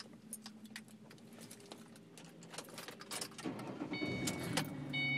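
Car keys jangling and clicking as the key goes into the ignition of a 2009 Ford Mustang. About three and a half seconds in, a low steady hum comes up. From about four seconds the car's warning chime starts, ringing in repeated pulses.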